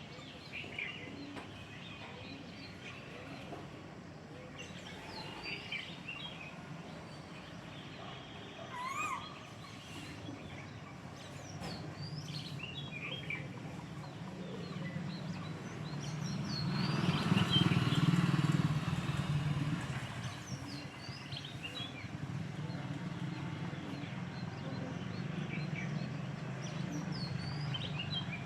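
Birds chirping and calling, with one rising call about nine seconds in. A motor vehicle passes: its engine hum builds from about twelve seconds, is loudest around seventeen to nineteen seconds, and a lower hum stays on after it.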